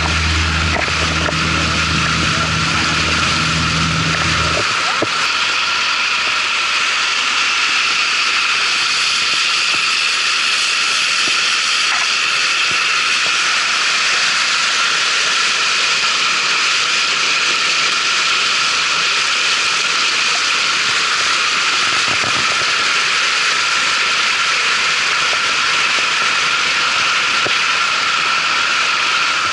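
Longtail boat's engine running steadily at cruising speed, a loud, unchanging drone with a high whine, over rushing water and wind. A deeper hum drops out about four and a half seconds in.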